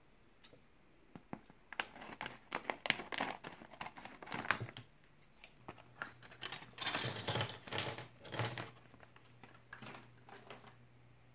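A Playmobil Figures blind bag's plastic foil crinkling and rustling in irregular bursts as it is opened and its small plastic figure parts are tipped out onto the table.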